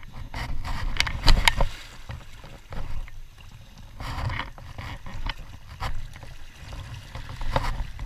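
Drift boat on a moving river: water sloshing against the hull over a steady low rumble, with a few sharp knocks, the loudest cluster about a second in and another near the end.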